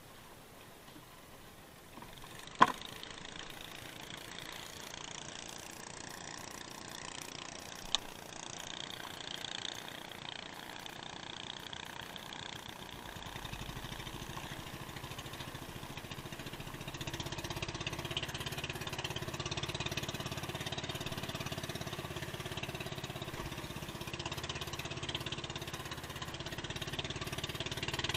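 Small boat engine running steadily, growing louder about halfway through as the boat gets under way. Two sharp knocks stand out early on the hull or gear.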